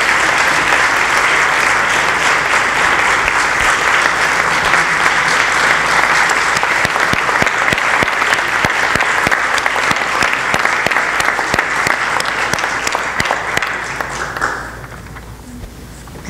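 Audience applauding steadily in a hall, the clapping dying away near the end.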